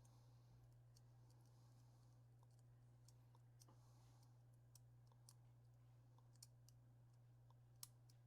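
Near silence with faint, scattered small clicks of tweezers and small parts of a disassembled Assa 6000 lock cylinder being handled. The sharpest click comes near the end, over a steady low hum.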